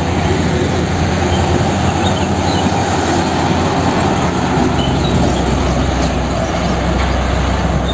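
Heavy diesel tanker truck, a Mitsubishi Fuso tractor unit pulling a tanker trailer, driving past on a highway: a low engine drone under steady tyre and road noise.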